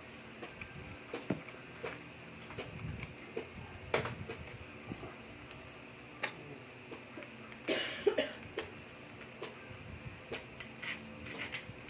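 Small plastic parts of a baby walker clicking and knocking as they are handled and fitted with a screwdriver, in scattered single taps, with one louder, noisier burst about eight seconds in.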